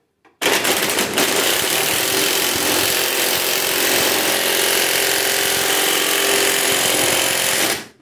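Impact driver hammering continuously on a bolt held fast by an adjustable wrench. It starts about half a second in, runs steadily for about seven seconds and stops abruptly just before the end. The fastener cannot turn, so the impact mechanism keeps hammering.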